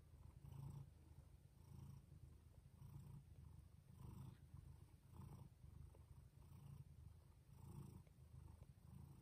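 Mother cat purring faintly as her newborn kittens nurse, a low rumble that swells and fades about once a second with her breathing.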